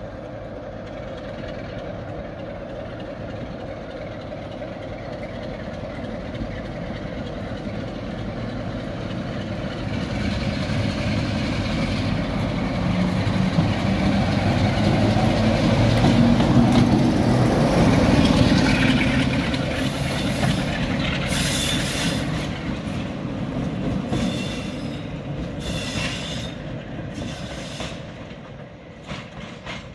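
Class 47 diesel locomotive running in at low speed, its engine growing louder as it nears and passes, then fading away. Several short high squeals come near the end.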